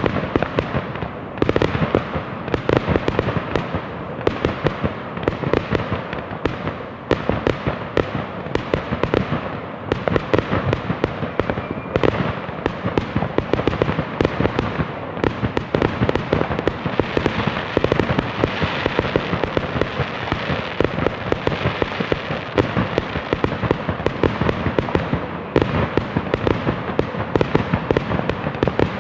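Fireworks going off without pause: a dense barrage of bangs and crackles, with a stretch of hissing crackle past the middle.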